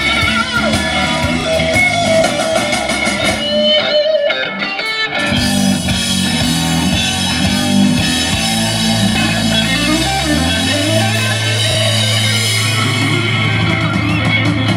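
Live roots-rock band playing an instrumental passage, with an electric guitar lead on a Stratocaster-style guitar over bass guitar and drums. The bass and drums drop out for about a second about four seconds in, and the bass walks up in a rising run shortly before ten seconds, then holds a low note.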